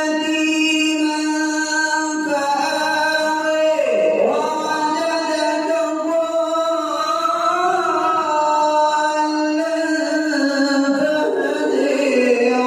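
A man reciting the Quran in melodic tilawat style, holding long drawn-out notes that bend and turn in pitch, with a short break for breath about two seconds in.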